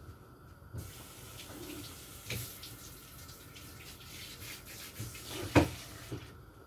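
Kitchen tap running while a pot lid is rinsed under it, with a few knocks of the lid against the sink. The loudest knock comes near the end, just before the water is shut off.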